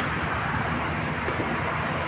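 Steady noise of passing road traffic.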